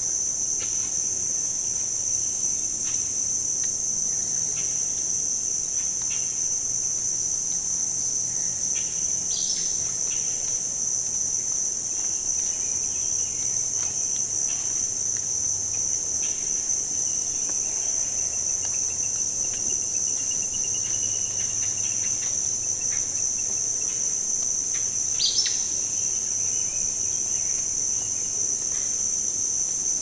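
Steady high-pitched insect chorus, the continuous trill of crickets. Occasional faint bird chirps sound over it, with two short sharp calls about nine and twenty-five seconds in.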